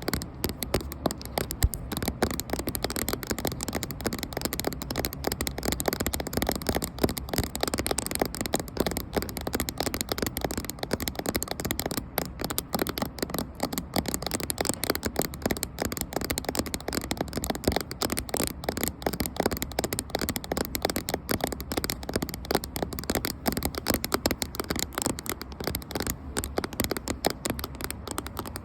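Fingers tapping rapidly and continuously on a camera, close to its microphone: a dense, even stream of small clicks with no pauses.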